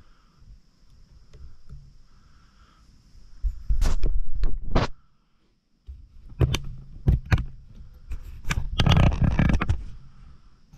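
Handling noise from a hand working a camera on its treestand mount arm: a couple of knocks with a low rumble about four seconds in, then a longer run of taps and rubbing in the second half.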